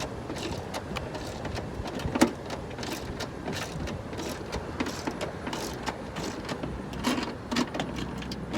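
Scattered light clicks and knocks from hands working on a car door's inner parts, refitting plastic clips and screws, with one sharper knock about two seconds in, over a steady low hum.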